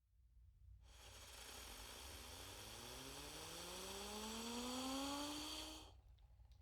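Cartoon UFO zip-whistle sound effect: a hissing whoosh with a low whistling tone that rises slowly in pitch and grows louder, then cuts off suddenly.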